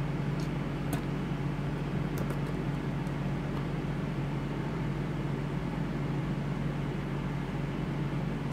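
Steady low electrical hum with a light hiss from bench charging equipment running, with a couple of faint light clicks in the first second.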